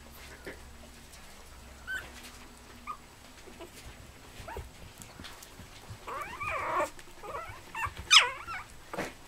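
Spitz puppies squeaking and whining: a few short high squeaks, then a run of cries about six seconds in and the loudest, sharpest squeal about eight seconds in.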